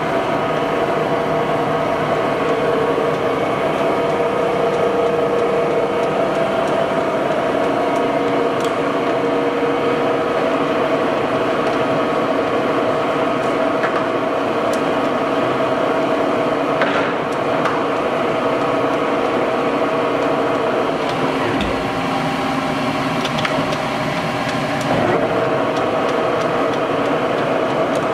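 Monarch 29 x 80 in engine lathe running under power, its drive and headstock gearing giving a steady mechanical hum with a whine. The tone shifts for a few seconds about three-quarters of the way through.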